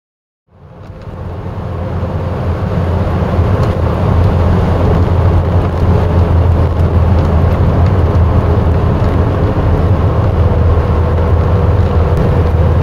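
Cabin noise of a Ford Cortina Mk3 GXL cruising at a steady speed: a steady low drone of engine and road noise that fades up over the first second or two.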